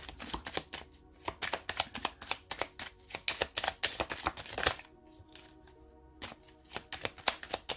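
A deck of oracle cards being shuffled by hand, a rapid run of card flicks. It breaks off for about a second just after the middle, then resumes.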